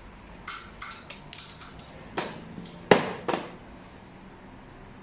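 Xiangqi pieces clacking onto the board as moves are played: a few light clicks in the first second and a half, then sharper clacks about two and three seconds in, the one near three seconds the loudest.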